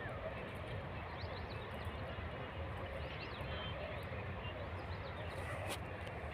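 Steady outdoor background noise with short high chirps scattered through it and faint voices, and one sharp knock near the end.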